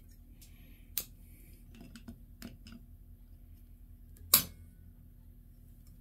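Steel locking pliers (vice grips) being set and clamped onto a stuck bolt on a turbocharger bearing housing: a few light metallic clicks, then one sharp, loud snap a little over four seconds in.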